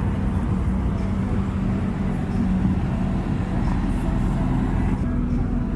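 Car engine running steadily, a low rumble with a constant low hum and no revving.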